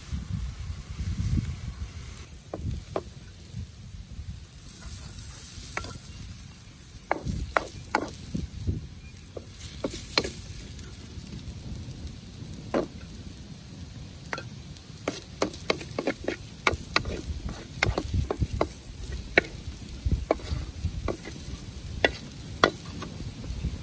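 A wooden spatula and utensils scraping and knocking against a steel wok as stir-fried noodles are turned and served out: a string of short, irregular clicks and clinks, after a low rumble in the first couple of seconds.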